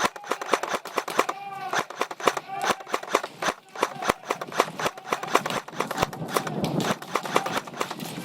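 Airsoft guns firing: a rapid, irregular run of sharp pops and clicks, several a second, throughout.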